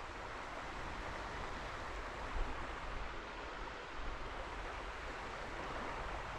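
Steady rushing of river water, with a couple of brief faint sounds a little way in.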